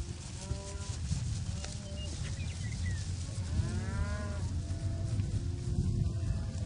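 Several cattle mooing, short calls at first and a longer, louder moo about halfway through, with a drawn-out lower call after it, over a steady low rumble.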